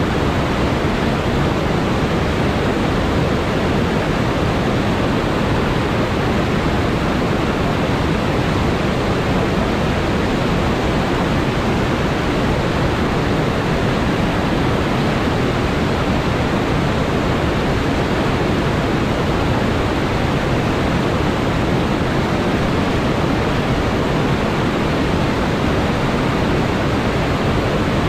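River whitewater rushing and churning over rocks in a set of rapids: a loud, steady, unbroken rush of water with plenty of low rumble in it.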